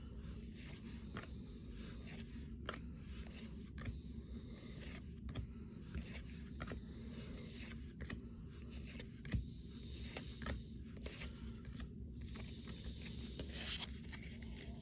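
Baseball trading cards being handled and flipped through one at a time: soft, irregular clicks and scrapes of card stock.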